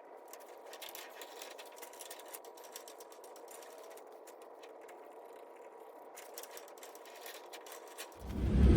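Faint, fast ticking and rattling, thin and with no low end, like sped-up footage. About eight seconds in, a loud low vehicle rumble cuts in.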